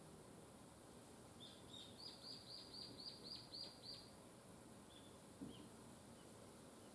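A small bird calling faintly: two or three high notes, then a quick run of about eight evenly spaced chirps lasting about two seconds, then a few scattered notes, over a steady faint hiss of outdoor background.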